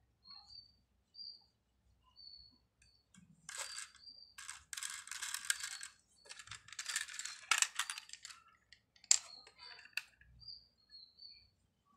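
A plastic toy auto rickshaw being handled: two stretches of plastic rattling and scraping in the middle and a sharp click about nine seconds in. Short high chirps repeat throughout, like a small bird.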